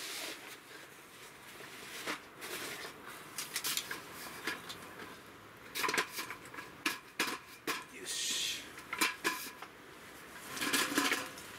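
Folding camp table with metal legs and a slatted top being unfolded and set up: scattered sharp clicks and clacks as the legs and frame lock and knock, with a short rustle about two-thirds of the way in.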